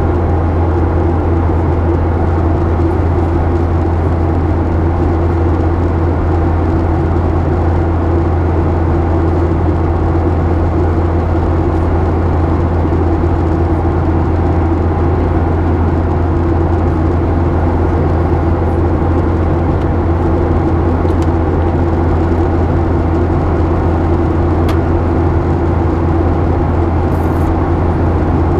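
Steady cabin noise of a Boeing 737-800 at cruise, heard inside the cabin at a window by the wing: the even drone of its CFM56-7B turbofan engines and the rush of air past the fuselage, with a strong low hum underneath.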